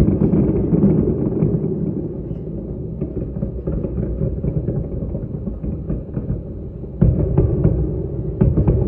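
Demolition implosion of the Tropicana's towers: a deep, continuous rumble full of sharp crackles. It eases after the first couple of seconds, then a sudden louder surge comes about seven seconds in.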